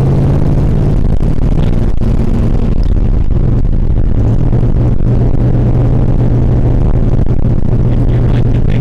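Dodge Coronet Super Bee's V8 engine running at a steady pitch while the car is driven, heard from inside the cabin.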